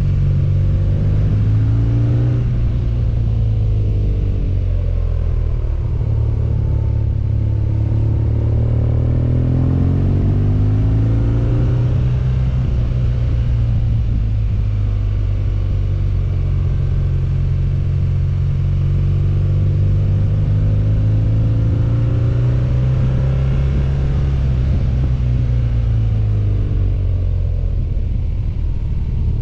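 BMW motorcycle engine running at road speed, its pitch rising and falling as the throttle is eased and opened through the bends, over a steady rush of wind.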